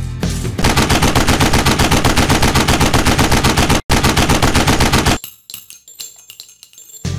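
Sound effect of rapid automatic gunfire, about nine shots a second, with a split-second break near the middle. It stops about five seconds in, leaving faint scattered crackles.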